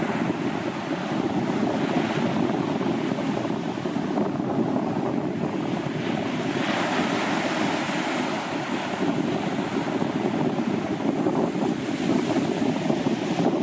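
Sea surf breaking on a sandy beach: a continuous wash of waves, with the hiss of foam swelling each time a wave runs up the sand, most strongly about seven and twelve seconds in.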